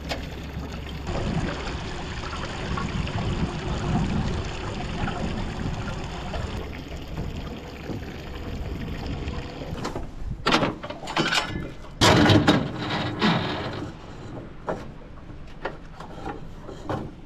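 Knocks and clatter on an aluminium boat's deck and bow: a run of loud bangs and rattles about two-thirds of the way through as the anchor well is opened and the anchor rope is handled, with water lapping against the hull underneath.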